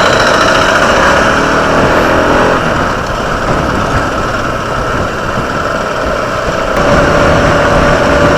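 Motorcycle engine running on the move, with road and wind noise.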